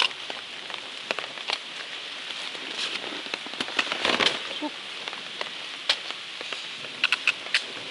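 Steady rain falling, with single drops striking close by as sharp ticks. A louder rustle comes about four seconds in.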